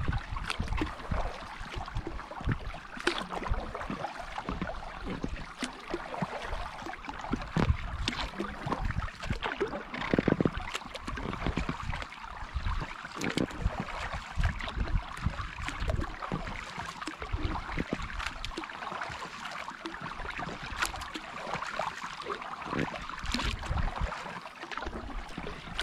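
Kayak paddle strokes in calm water: irregular splashes and drips as the blades dip and lift.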